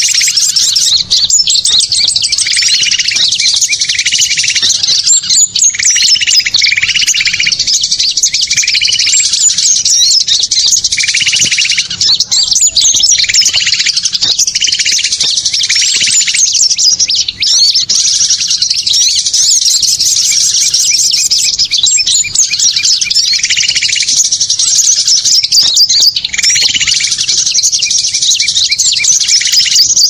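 Bird-lure (pikat) recording of many small songbirds chirping and trilling loudly without pause, a dense mixed chorus meant to draw in wild birds. A lower, repeated call note comes in stretches, through roughly the first half and again near the end.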